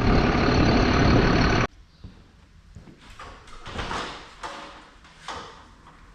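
Engine running loudly and steadily, which cuts off abruptly about a second and a half in. A few soft knocks and rustles follow.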